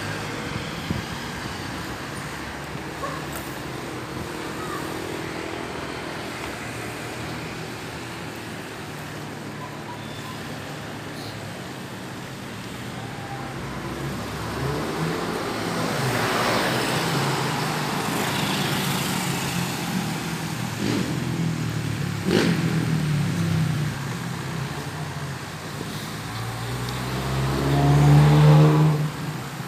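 Street traffic on a city avenue: cars passing in a steady hum, with several passing more loudly in the second half. Near the end a vehicle's engine accelerates close by, rising in pitch, the loudest sound.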